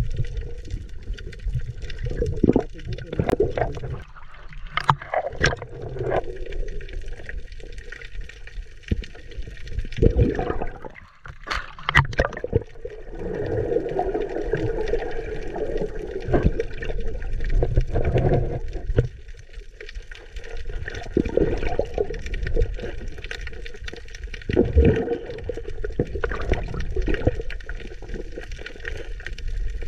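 Muffled underwater sound of water churning and air bubbling around a freediver, with scattered sharp clicks and knocks.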